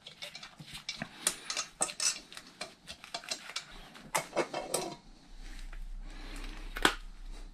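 Metal clinks and knocks as the throttle body is handled and lifted off a Honda 2.2 i-CTDi diesel intake manifold. There is a softer rustling stretch about two-thirds through and one sharp knock near the end.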